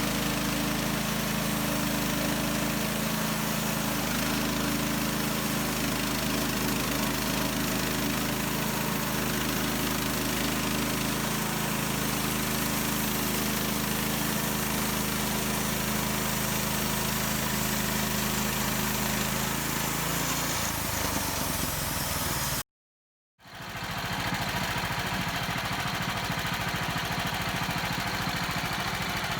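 Bandsaw mill engine running steadily while the mill saws a log. The engine note shifts about twenty seconds in, drops out for a split second, then carries on.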